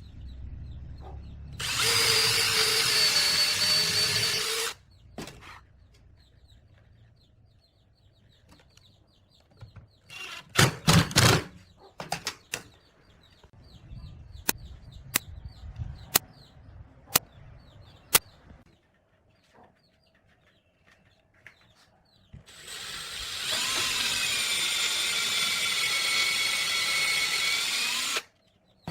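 A power tool's motor whining at high speed in two runs of about three and six seconds, with a cluster of knocks and several sharp single clicks in the gap between.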